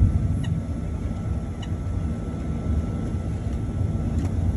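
Boeing 737-900's CFM56 turbofan engines heard from inside the cabin while the jet taxis at low power: a steady low rumble with a faint steady whine above it.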